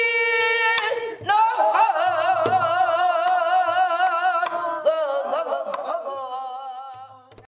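Pansori singing: one voice holding long notes, the first steady and the later ones with a wide, wavering vibrato, with a few sharp knocks under it. The sound tapers off and breaks off about seven seconds in.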